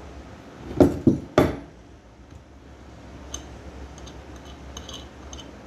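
Hard objects knocking down on a work surface three times in quick succession about a second in, followed by a few light clinks.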